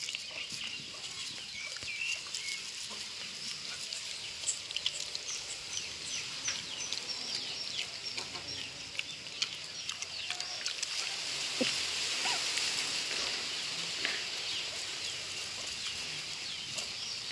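Many small birds chirping over a steady high hiss. Scattered soft clicks and rustles come from a dog chewing papaya among dry leaves.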